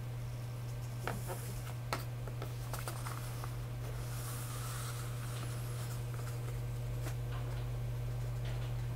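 A sheet of paper rustling as it is handled, with a few light clicks, over a steady low hum.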